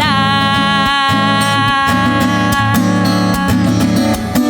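A woman sings a Chilean tonada, holding one long note on the word "vuela" over strummed acoustic guitar.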